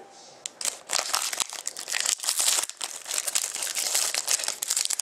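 A foil trading-card pack (2013-14 Panini Contenders hockey) being torn open by hand, its wrapper crinkling and crackling. The crackling starts about half a second in and keeps going as the foil is pulled apart.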